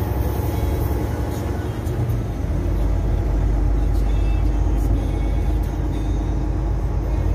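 Steady road noise heard from inside a vehicle's cab while driving across a suspension bridge: engine and tyre drone, with a deeper rumble that grows stronger about two and a half seconds in.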